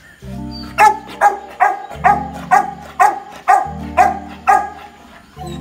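A large dog barking in a steady run, about two barks a second, nine in a row, stopping near the end. Background music with low sustained notes plays underneath.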